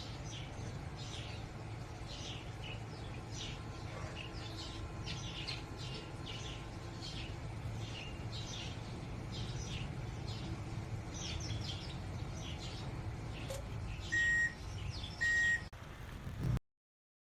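Birds chirping over and over above a steady low hum. Near the end come two short, loud electronic beeps about a second apart, then the sound cuts off.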